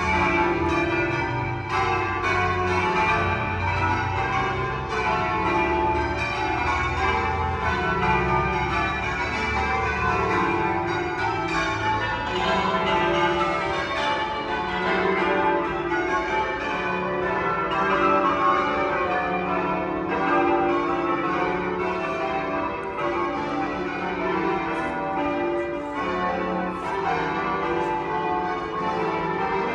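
A ring of twelve church bells rung in changes, one bell striking after another in a continuous, overlapping peal.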